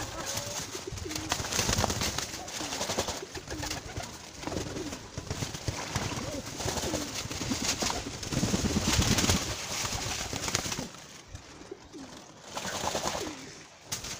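Domestic pigeons cooing repeatedly while several bathe together in a shallow tub of water, with splashing and wing flapping that is loudest about eight to ten seconds in.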